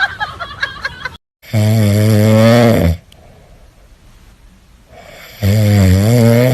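Loud snoring: two long, low, wavering snores about four seconds apart.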